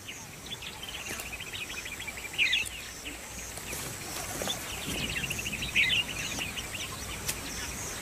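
Wild birds chirping and trilling in a steady background, with a sharper burst of chirps about two and a half seconds in and again near six seconds, over a faint repeating high buzz.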